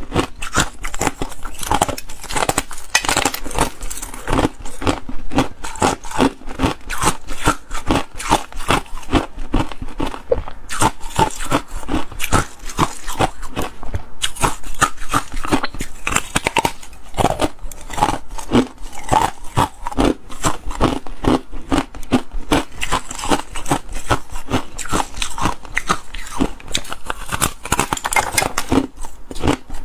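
Thin, hollow sheets of clear ice being bitten and chewed, giving a continuous run of crisp crunches and cracks packed closely together.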